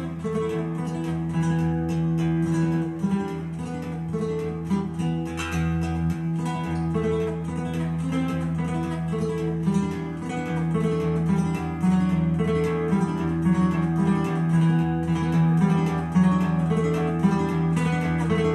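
Acoustic guitar music, strummed and picked, playing through a tiny cube Bluetooth speaker.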